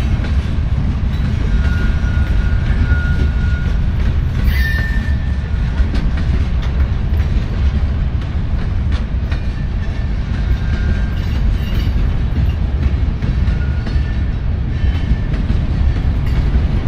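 Freight train rolling past with a heavy, steady low rumble of cars on the rails, and a brief thin wheel squeal a couple of times in the first five seconds.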